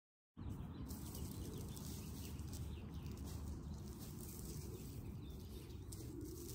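Open-field outdoor ambience: a steady low rumble of wind on the microphone with faint bird calls, starting abruptly just after the start.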